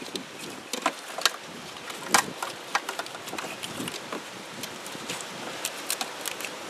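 Hands working wiring-harness connectors and cables in an engine bay: irregular small plastic clicks and rattles, the sharpest about two seconds in.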